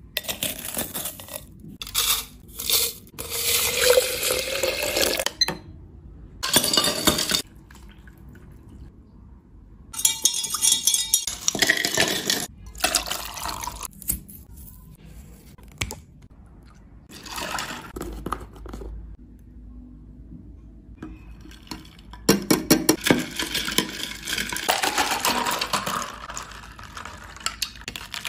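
Liquid poured into a glass bowl in several bouts, the pitch rising as the bowl fills; the last and longest pour, near the end, is milk. Between the pours come short handling sounds.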